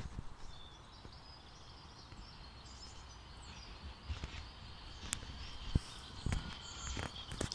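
Quiet outdoor ambience: faint bird chirps over a low rumble, with a few sharp clicks and knocks in the second half.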